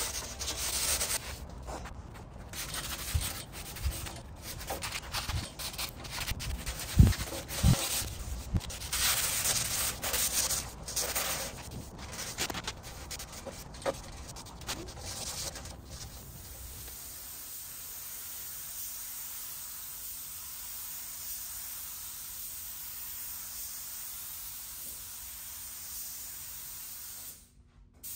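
Hand sanding of a chrome steel bumper with sandpaper, scuffing it for primer: irregular scratchy strokes with a few knocks, the loudest about seven seconds in. After about sixteen seconds the sanding stops and a steady hiss takes over.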